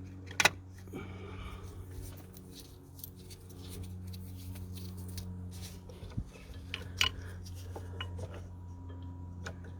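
Small metallic clicks and clinks of a diesel injector's hold-down clamp and bolt being handled and fitted, with two sharper clicks about half a second in and about seven seconds in, over a steady low hum.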